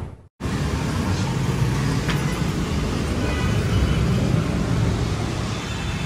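A loud intro sound effect dies away and cuts out, and about half a second in a steady low hum and hiss of room noise begins. The hum is consistent with a large appliance showroom.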